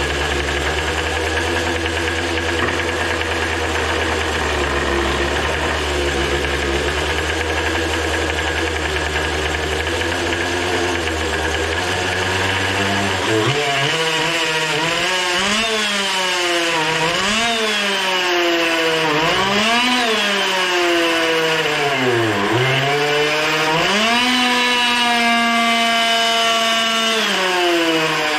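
Small two-stroke leaf blower engine (Poulan Pro) running on nitromethane RC car fuel: a steady low idle, then from about halfway through it is revved up and down sharply about five times by hand on the throttle cable, held at high revs for a few seconds near the end before dropping back.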